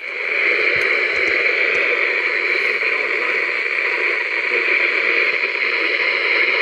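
Weather radio receiver hissing with loud, steady static that sets in abruptly, with no voice or tones on the channel.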